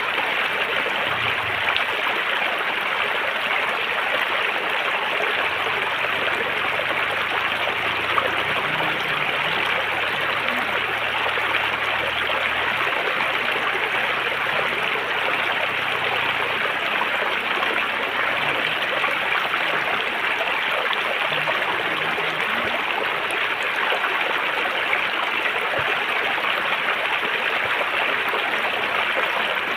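River water flowing steadily over rocks: a continuous, even rush and babble of a stream.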